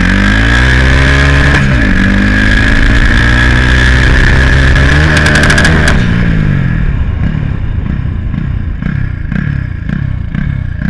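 Turbocharged Honda Titan 160 single-cylinder motorcycle engine revving, with a steady turbo whine over it. About six seconds in the throttle closes: the whine stops and the engine comes down in quick repeated dips in pitch, with no turbo flutter on lift-off.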